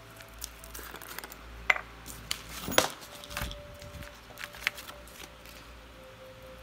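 Handling noises of paper crafting: scattered light clicks, taps and paper rustles as fingers arrange a paper flower and its wire stamens and move a sheet of paper and a small jar of glitter on a tabletop. The sharpest clicks come about two to three seconds in.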